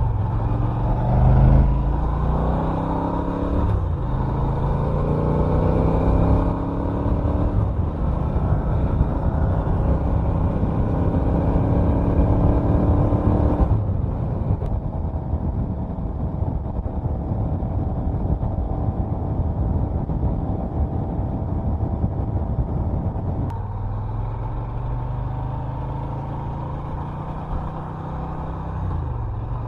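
Norton Commando 961's parallel-twin engine pulling through the gears, its pitch climbing several times in quick succession, then running at a steady speed. The sound changes abruptly about halfway through and again near the end, where it begins to climb once more.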